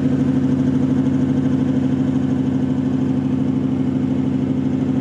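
A 4WD's engine running hard at a steady pitch while its wheel spins in soft sand, throwing sand: the vehicle is bogged and trying to drive out.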